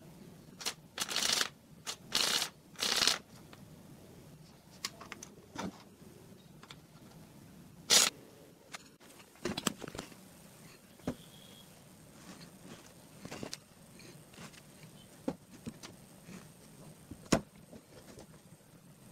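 Handling noise: scattered rustles, scrapes and sharp clicks as wires and small coin vibration motors are handled on a wooden table, with three rustling scrapes in the first few seconds and single sharp clicks near the middle and near the end.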